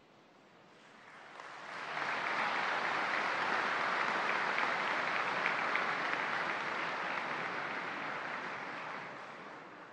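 Audience applause that builds over the first two seconds, holds steady, then dies away near the end.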